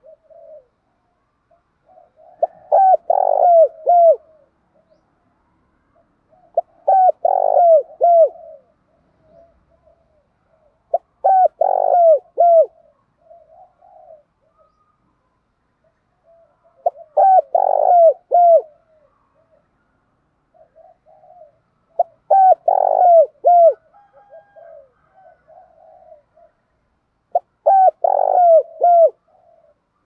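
Spotted dove cooing: a short phrase of several coos, repeated six times about every five seconds, with softer notes in between.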